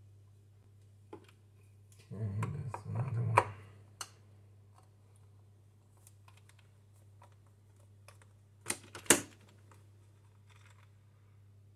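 Screwdriver and hands working on a plastic under-cabinet fluorescent light fitting to take it down: a cluster of taps and clatter a couple of seconds in, scattered small ticks, then sharp plastic clacks about nine seconds in as the fitting is freed. A steady low hum runs underneath.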